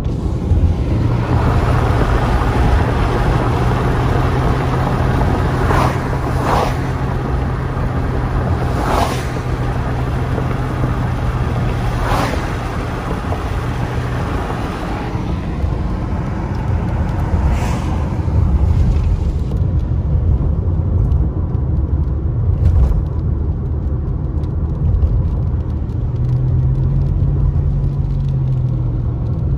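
Road noise heard inside a moving car on a wet road: a steady low rumble and tyre hiss, with a few brief swishes in the first twenty seconds.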